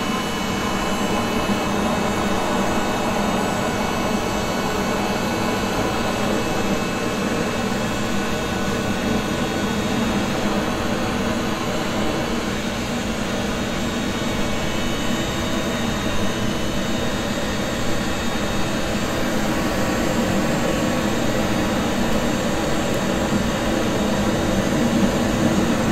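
Looftlighter electric fire lighter running steadily, its fan blowing a jet of superheated air at burning paper and logs to get a wood fire going. A steady rush of air with a few steady tones over it.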